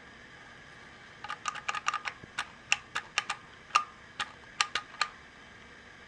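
Otis-style square Lexan elevator call button on an Adams Survivor contact block, pressed and released repeatedly by finger: a run of sharp clicks starting about a second in, rapid at first and then more spaced out, stopping about five seconds in.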